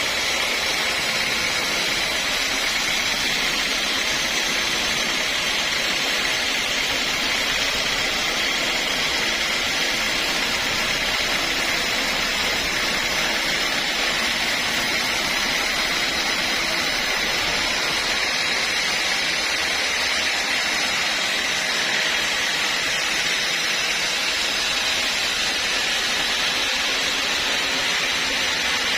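Sawmill saw running steadily: a constant high-pitched whine over a hiss, unchanging throughout.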